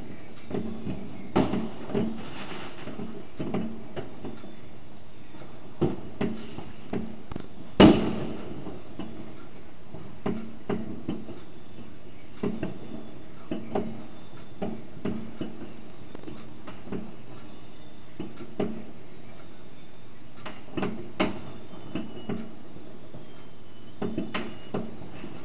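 Fireworks and firecrackers going off, an irregular scatter of bangs and pops, with one louder bang about eight seconds in.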